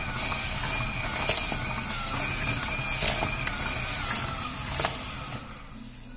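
Rotary tumbler drum turned by a small DC gear motor, the grey granular polishing media inside sliding and cascading against the clear plastic drum with a steady rushing hiss and scattered clicks. It dies down near the end.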